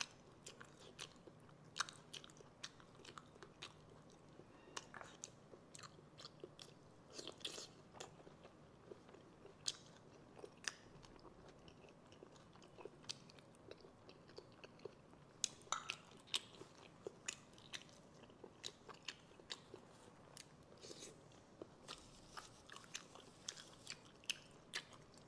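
Close-miked eating of shellfish: quiet wet chewing and mouth smacks, with many short sharp clicks and crunches as the shells are bitten and pulled apart by hand.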